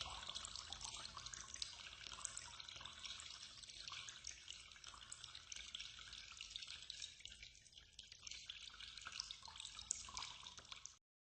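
Faint trickling water with many small drips ticking through it, cutting off abruptly near the end.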